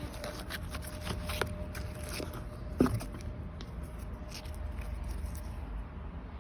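Slime being squished and poked, with a run of small sticky clicks and pops and one louder thud about three seconds in.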